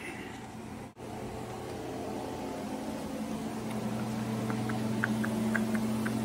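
A steady low hum or whir, with a steady tone growing louder in the second half and a few faint light ticks near the end.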